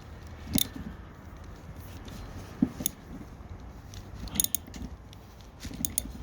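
Scattered metallic clicks and clinks from a 13 mm socket tool on the rear wiper arm's retaining nut as it is tightened, a few single clicks and short clusters of clicks.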